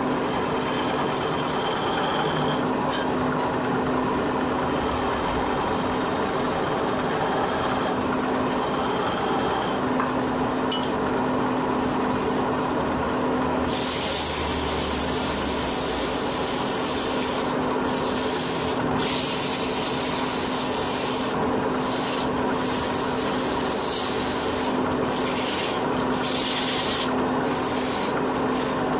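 Wood lathe running with a steady hum while a chisel scrapes the spinning wooden spindle. About halfway through, the piece is sanded by hand as it turns, adding a steady rasping hiss.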